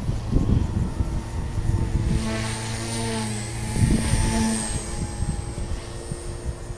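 Align T-Rex 150 DFC micro electric RC helicopter in flight: a high-pitched motor whine with rotor buzz, wavering slightly in pitch and louder for a few seconds in the middle as it comes in low and close. Gusty low rumble of wind on the microphone throughout.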